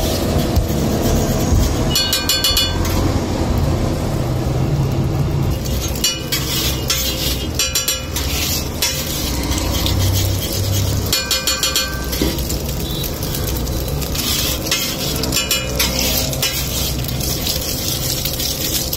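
Steel spatula edge chopping food on a flat iron griddle: rapid metal-on-metal tapping in bursts of about a second, several times over, over a steady low hum.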